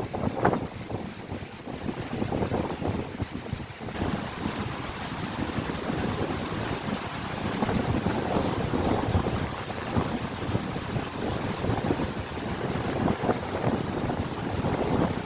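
Strong storm wind gusting and buffeting the microphone in irregular pulses. The rushing hiss grows fuller about four seconds in.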